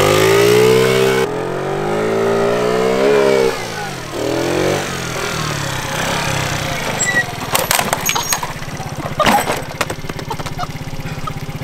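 A small moped scooter engine revs up, its pitch climbing, then drops off about three and a half seconds in. Sharp knocks and scraping come around eight and nine seconds in as the scooter goes down on the pavement, and the engine then runs on with a steady low beat.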